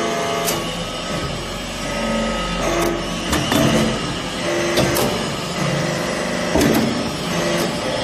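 Hydraulic briquetting press for metal chips running as its ram comes down on the chips: a steady hydraulic drone with sustained tones that shift now and then. Several sharp metallic clicks and knocks fall through it.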